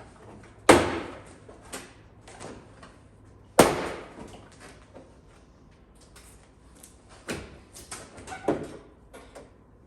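A hard plastic body panel on a Kawasaki Teryx KRX being popped and flexed away from its frame. Two sharp, loud snaps about three seconds apart, with lighter clicks and knocks between them and near the end.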